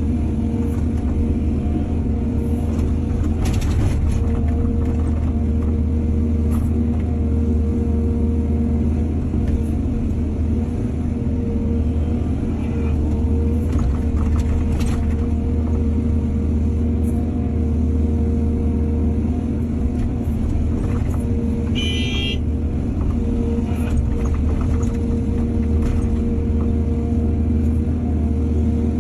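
Heavy diesel machinery, an excavator loading soil into a truck, running steadily with a low rumble and a held engine tone. A few short knocks and clanks, and a brief high tone about three-quarters of the way through.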